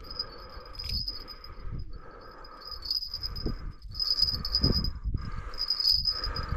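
Heavy breathing close to the microphone, about one breath a second, with a high whistle on each breath from the nose of a man sick with a fever.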